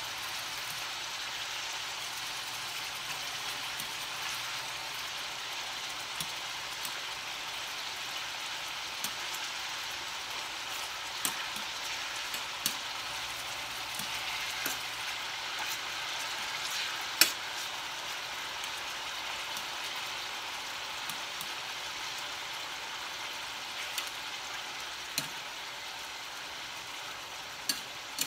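Beef frying in oil in a stainless steel pan, a steady sizzle, with scattered sharp clicks as metal tongs turn the meat against the pan; one click a little past the middle is louder than the rest.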